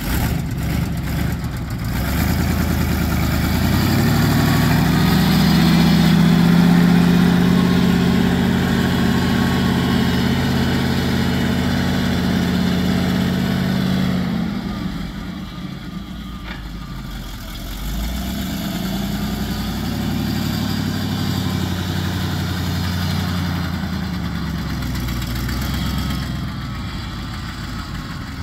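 Engine of a 1985 Chevrolet C70 bulk feed truck driving slowly across grass. Its pitch rises as the truck gets under way and holds for a while. About halfway through it drops back, then picks up again and eases off near the end.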